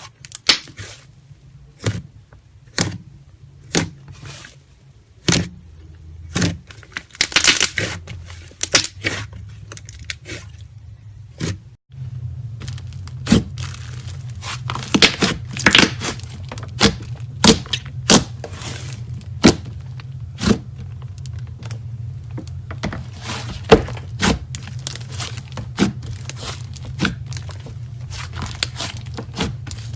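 Slime being squished and stretched by hand, giving irregular sticky pops, clicks and crackles. A steady low hum runs underneath from about twelve seconds in, after a brief cut-out.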